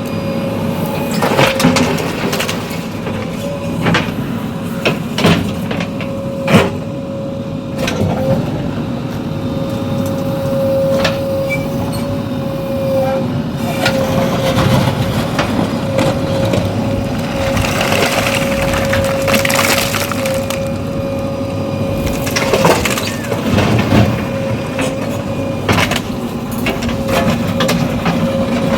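Heavy diesel machinery running steadily, with a low rumble and a steady high whine, and scattered sharp knocks and cracks over it.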